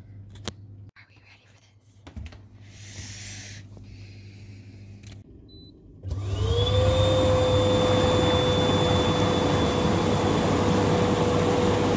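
Lay-Z-Spa inflatable hot tub's air-bubble blower switched on about halfway through: a motor whine that rises quickly to a steady pitch over a loud rush of air and churning water.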